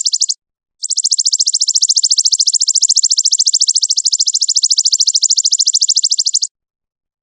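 A high, rapid trill of evenly spaced, buzzy pulses from a masteran song recording used to train songbirds. It breaks off for about half a second just after the start, runs on steadily, then stops well before the end.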